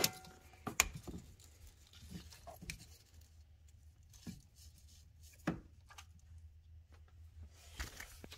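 Handling noise as a camera is moved and set up in a truck's engine bay: scattered rubs and a few sharp clicks and knocks, over a faint steady low hum.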